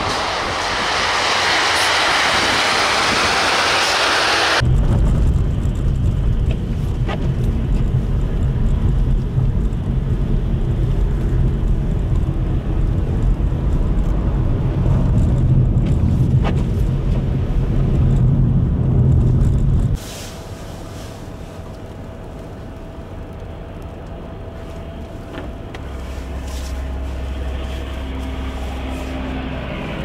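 A tanker semi truck passes on a snow-covered road with a loud hiss of tyres throwing snow. After about four and a half seconds this gives way to a steady low rumble of road and engine noise inside a vehicle driving on a snowy highway. This drops sharply about twenty seconds in to a quieter low hum of traffic stopped in a jam, with a faint steady tone.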